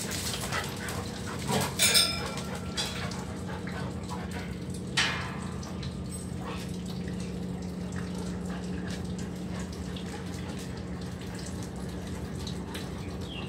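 A dog gives short, sharp calls, a cluster about two seconds in and one more about five seconds in, over a steady low hum.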